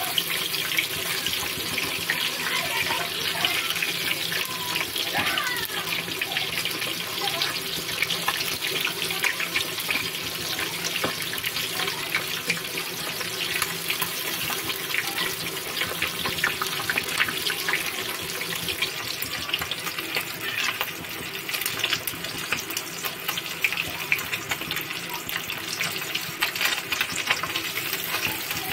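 Pieces of fish deep-frying in hot oil in a karahi, with a steady sizzle and a constant fine crackle.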